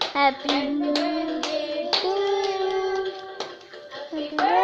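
Voices singing a birthday song with long held notes, hands clapping along about twice a second. The singing dips briefly near the end, then starts up again.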